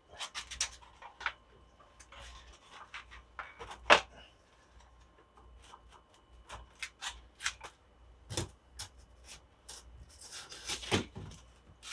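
Handling noises as materials are moved about: a run of light clicks, knocks and rubbing rustles, with one sharp knock about four seconds in and a busier rustling patch near the end.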